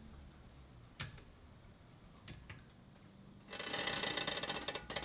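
Hydraulic floor jack being pumped to raise the rear of the car: a single click about a second in, then from about three and a half seconds a fast, dense mechanical clatter.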